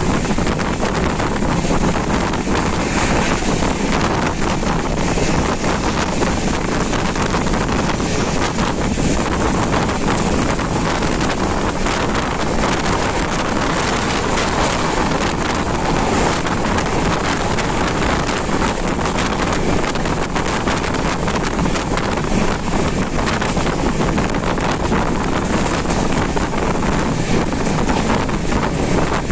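Wind rushing over the microphone at the open window of a moving train, with the train's running noise underneath; a steady, loud buffeting rush.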